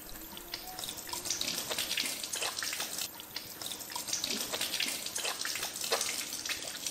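Water running from a tap into a stainless steel sink, splashing unevenly over hands being washed under it.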